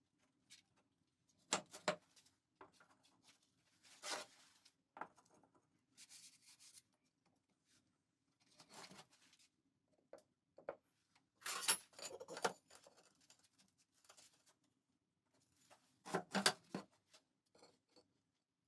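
Firebricks and aerated concrete blocks being set down and slid against each other by gloved hands: a series of brief scrapes and knocks at irregular intervals.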